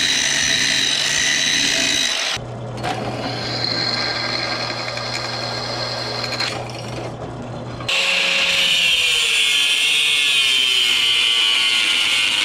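Angle grinder cutting through a steel bar with a loud high whine. About two seconds in it gives way to a quieter bench drill press running and drilling through the bar, with a steady motor hum. About eight seconds in the angle grinder cuts again.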